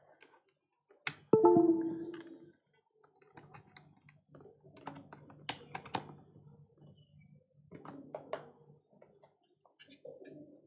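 Computer keyboard typing, irregular scattered taps and clicks, over a low steady hum. About a second in there is a brief pitched sound that starts suddenly and fades over about a second; it is the loudest thing.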